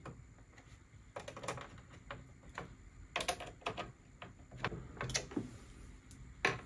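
Faint, irregular light clicks and ticks of a screwdriver turning the motherboard mounting screws tight into the case's standoffs.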